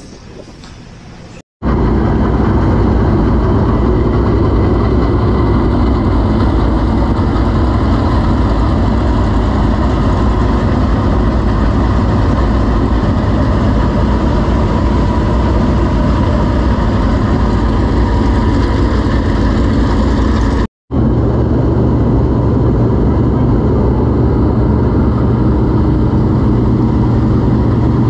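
Dirt late model race car V8 engines running steadily, loud and close, with no revving. About 21 s in the sound cuts briefly to a second late model engine, also running steadily.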